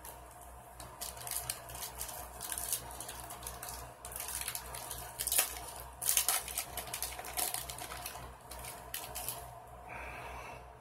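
Foil wrapper of a trading-card pack crinkling and rustling as it is torn open and pulled off, with the cards inside being handled, in a run of irregular crackles that is thickest near the middle. A steady low hum runs underneath.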